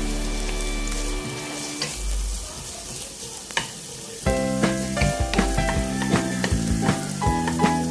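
Food sizzling as it fries in hot oil in a pan, under background music; a new, rhythmic music passage comes in a little past halfway and is the loudest sound from then on.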